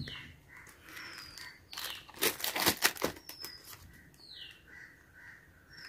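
A phone cover being pressed and snapped onto a Realme C53 smartphone: handling rustles and a quick run of clicks and scrapes about two to three seconds in. Short, falling bird chirps repeat in the background.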